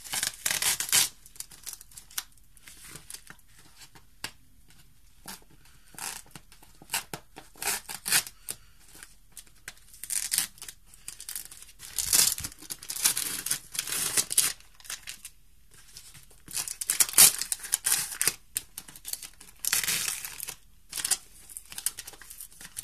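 Packing tape being peeled and ripped off a paper-wrapped parcel, in irregular bursts of ripping with paper crinkling in between.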